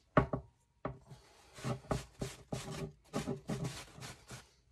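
Sanding block rubbed back and forth over a painted wooden dollhouse wall piece, about three strokes a second, after a single knock at the start. This is the fine-grit pass that knocks down the wood fibres raised by the first coat of paint.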